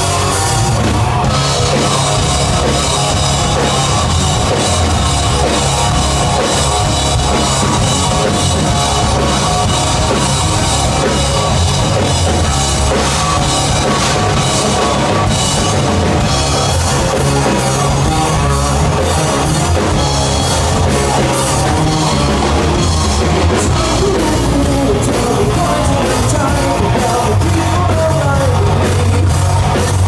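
Live rock band playing loud through a PA: distorted electric guitars, bass guitar and a drum kit.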